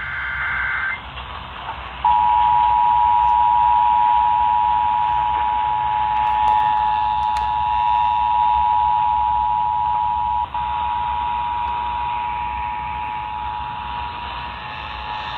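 The tail end of an Emergency Alert System data header burst, heard over a hissy radio signal, then about two seconds in the steady two-tone EAS attention signal starts and holds, with a brief dropout about ten seconds in.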